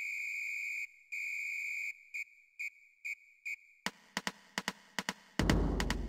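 A high electronic beep sounds in two long tones and then four short ones. Then a Barudan BEKT-S501CAII multi-needle embroidery machine starts stitching: sharp needle clicks several times a second, and about a second and a half later a loud running hum as it sews at speed.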